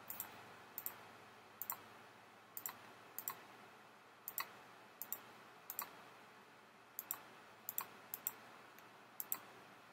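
Computer mouse clicking: about a dozen short, sharp clicks at uneven intervals, several coming in quick pairs, over faint room hiss.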